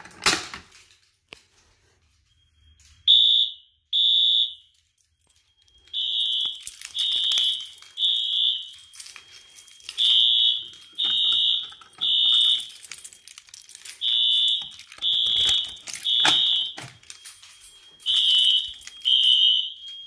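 A sharp click as a Notifier pull station is pulled. About three seconds later, fire alarm horns synchronized by a Wheelock sync module sound together in the temporal-three evacuation pattern: loud, high beeps in groups of three, about a second apart, with a pause between groups. A faint steady high tone carries on between the beeps.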